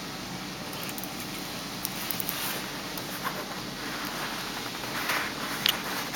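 Aquarium pump running: a steady low hum under an even hiss, with a few light clicks.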